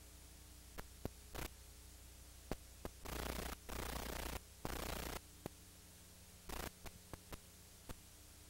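Low steady electrical hum with intermittent bursts of static hiss that switch on and off abruptly, plus scattered sharp clicks: the noise of an old videotape soundtrack carrying no program sound.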